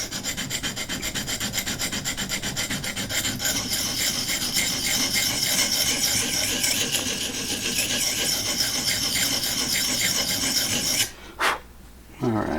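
Rapid back-and-forth scrubbing of a sharpening abrasive along a knife edge held in a Vipersharp guided clamp, about four strokes a second, stopping near the end and followed by a couple of light knocks. It is the stage of cutting a new secondary bevel on one side, before any burr has formed.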